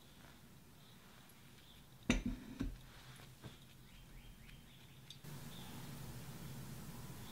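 Quiet pour-over brewing sounds: a sharp knock about two seconds in and a softer one just after, faint ticks from the coffee bed blooming, then a steady low hiss from about five seconds in.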